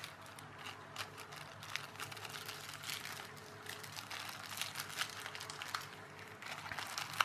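Small clear plastic component bags crinkling and rustling as they are handled, with many short, irregular crackles.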